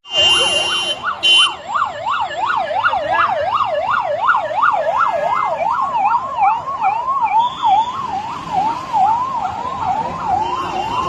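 Electronic siren sounding for a civil-defence air-raid mock drill, in a fast rising-and-falling yelp of about three sweeps a second. The sweeps grow narrower after about five seconds, and a fainter, higher siren sweeps alongside. Brief high tones sound in the first second and a half.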